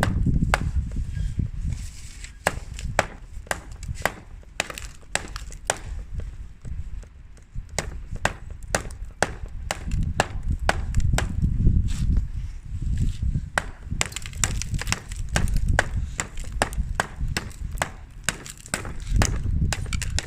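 Hard objects tapping and clattering in quick irregular clicks, several a second, over a low rumble, with the clicks coming thicker about two-thirds of the way in.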